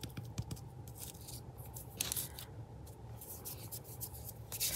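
Paper rustling and rubbing under fingers as glued paper layers are pressed down onto a corrugated cardboard base. Short scratchy strokes, a few light taps near the start, and a quicker run of rubbing near the end.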